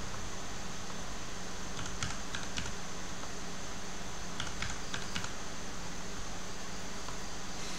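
Computer keyboard keystrokes: two short bursts of a few key taps as port numbers are typed in, over a steady background hiss.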